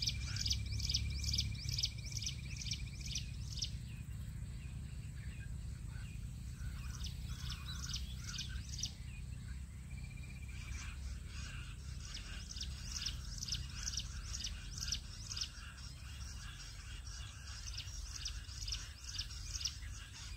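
Jungle bush quail calling: a rapid, even series of high chirps, about four a second, in a spell at the start and another from about twelve seconds in. A thin steady whistle runs under the first spell, and a low rumble runs throughout.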